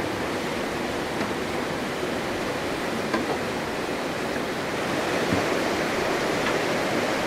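Steady rush of river water, with a few faint ticks.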